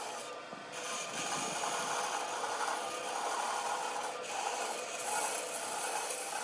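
Hand tool rubbing and rasping against wood in repeated strokes, about two a second, as in sanding, filing or sawing.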